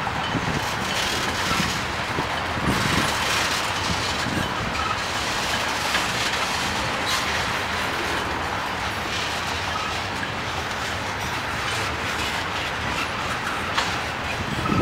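Railroad tank cars of a freight train rolling past: a steady rumble of steel wheels on the rails, with an occasional sharp clack over rail joints.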